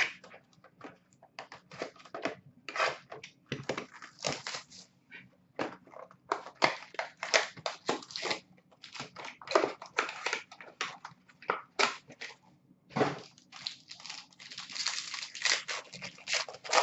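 Foil wrapper of an Upper Deck SP Game Used hockey card pack crinkling and tearing as it is opened by hand, in irregular crackles that grow denser near the end.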